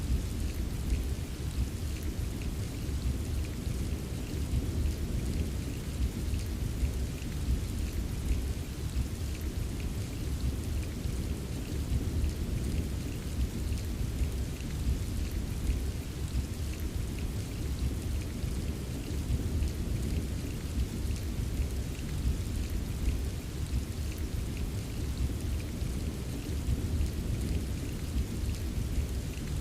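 Steady rain ambience: continuous rainfall with many small drop taps over a constant low rumble, unchanging throughout.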